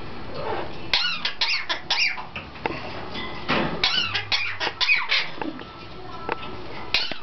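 Cherry-headed conure coughing: a run of short, rapid, squeaky cough-like calls with quick pitch bends, coming in two busy spells with a short pause between.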